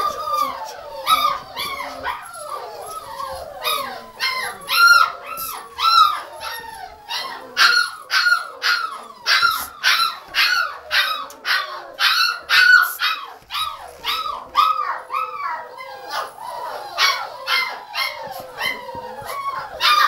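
Spanish Water Dog puppy barking and yipping in play: a long run of short, high-pitched barks, about two a second, thinning out for a few seconds past the middle.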